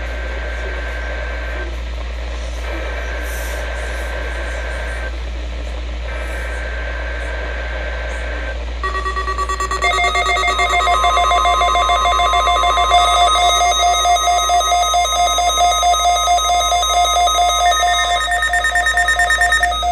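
Three bursts of Emergency Alert System SAME header data over NOAA Weather Radio, each a harsh two-tone digital buzz about two and a half seconds long, with short gaps. About nine seconds in comes a louder electronic alert of several pulsing beeps at different pitches, which lasts about eleven seconds.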